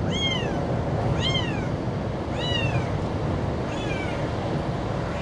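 Tabby kitten meowing four times, high calls a second or so apart, each rising then falling in pitch, the last one fainter. The kitten is calling for its mother.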